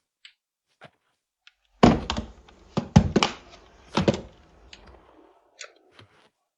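A cluster of dull thunks and knocks, four or five of them close together, with a low rumble underneath, from about two to four seconds in, then a few light clicks.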